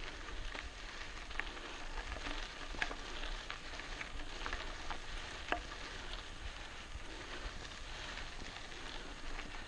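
Mountain bike tyres rolling over a gravel track: a steady crackling crunch of gravel with scattered clicks of small stones.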